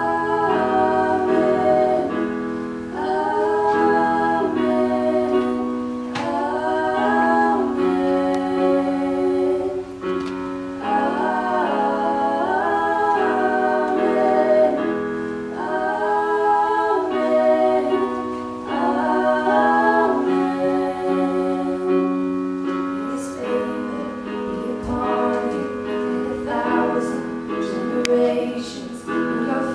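Music: a song with singing in phrases of a second or two over sustained chords.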